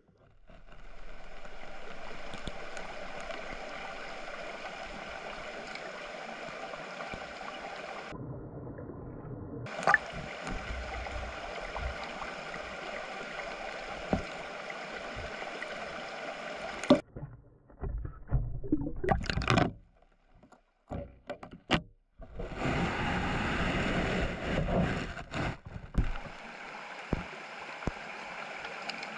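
Water of a small mountain stream rushing and gurgling, cutting in and out abruptly several times. Sharp knocks and short splashy bursts come a little past the middle.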